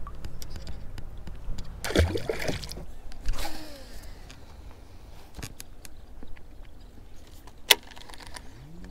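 Light water splashing and trickling around a small paddle kayak, with scattered short noises and one sharp knock near the end.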